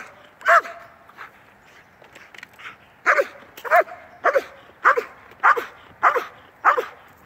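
Dog barking: one bark near the start, then a steady run of sharp barks, about one every 0.6 seconds, from about three seconds in.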